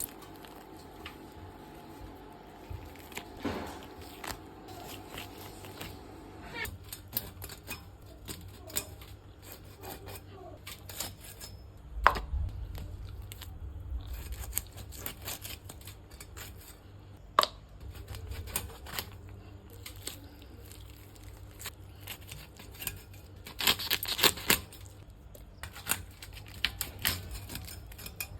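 Irregular clicks, knocks and scraping of hands and utensils at work preparing food, loudest around the middle and near the end. A steady hum runs for the first several seconds and then cuts off suddenly.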